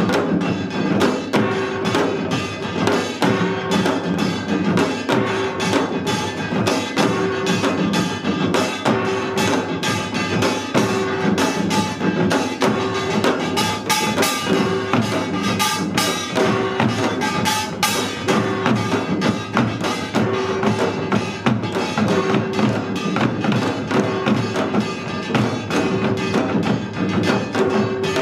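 Korean samul nori percussion played seated: janggu hourglass drums and buk barrel drums beat a fast, dense rhythm together, with the metallic clang of small kkwaenggwari gongs over it. The playing is loud and steady throughout.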